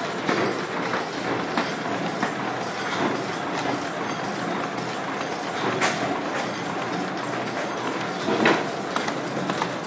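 Galaxo PRO780LB folder-gluer running crash-lock carton blanks through its belts: a steady mechanical rush with a rapid clatter of light clicks, and a sharper knock about six seconds in and another near the end.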